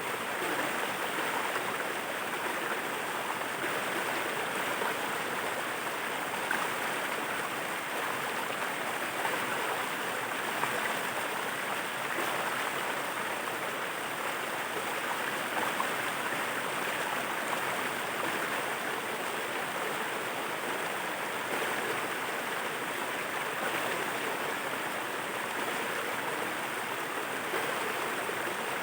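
Waterfall: water falling and rushing in a steady, unbroken wash.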